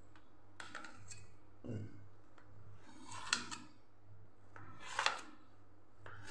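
Knife blade drawn through steamed dhokla and scraping along the bottom of a steel pan as the cake is cut into pieces: a few faint strokes about a second and a half apart.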